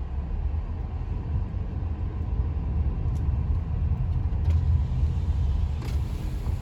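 Car cabin rumble while driving: a steady low drone of engine and road noise.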